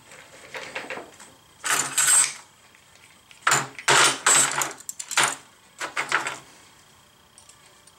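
Handling noises: about five short, noisy bursts over some six seconds as a paper shop towel is spread out on the lathe bed, then quiet near the end.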